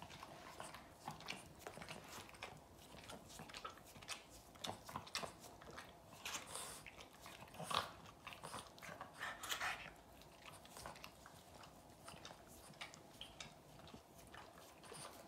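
Boston terrier licking a person's face and hands: a rapid, irregular run of small licking smacks and clicks, a few louder ones near the middle.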